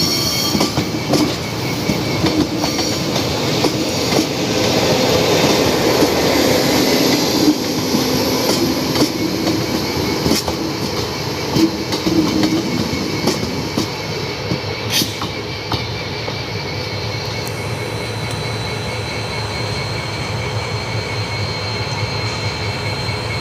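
Train rolling past on the track, its wheels clattering over rail joints. The clatter eases about two-thirds of the way through into a steadier, slightly quieter rumble.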